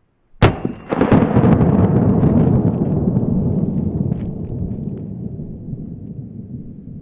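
A .45 ACP shot from a Glock 30 pistol: a sharp crack about half a second in, then a long, deep rumbling boom that slowly fades over several seconds.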